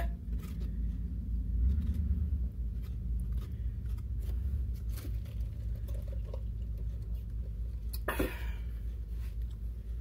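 Table knife spreading and scraping thick icing over a cookie cake on a metal baking pan: soft, uneven scrapes and light ticks over a steady low hum, with a brief louder noise about eight seconds in.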